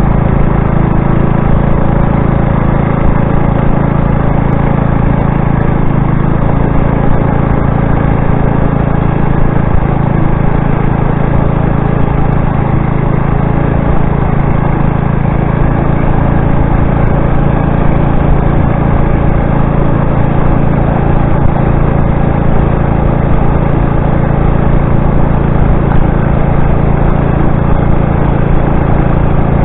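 Motorized bicycle's engine running steadily under way at an even speed.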